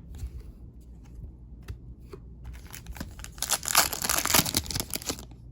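Trading-card pack wrapper being crinkled and torn open by hand: scattered light crackles, then a dense burst of crinkling from about three seconds in to near the end.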